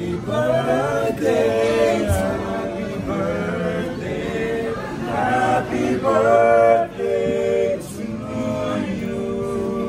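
Four young men singing a cappella together in harmony, several male voices holding notes and moving between chords.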